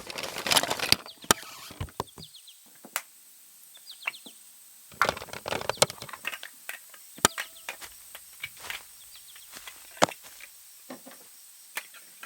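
Home-recorded foley effects laid over a toy-handling clip: scattered sharp taps, clicks and knocks. Faint birdsong chirps sound in the background.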